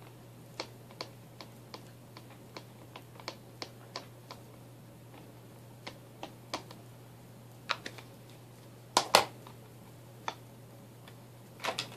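Ink pad tapped repeatedly onto a rubber stamp held in a stamp positioning tool: light plastic clicks, about two or three a second at first, then sparser. A louder double knock comes about three-quarters of the way through.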